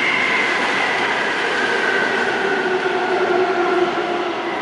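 An older-type Seoul Subway Line 5 train running into the station over steel rails, its motor whine falling steadily in pitch as it brakes.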